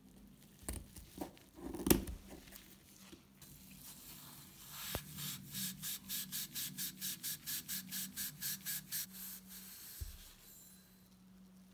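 A grey non-woven abrasive pad rubbed back and forth around the ribbed brass tube of an antique gasoline blowtorch, polishing it, at about four even strokes a second for several seconds. Before that comes scraping as a blade cuts the pad, with one sharp knock about two seconds in, the loudest sound.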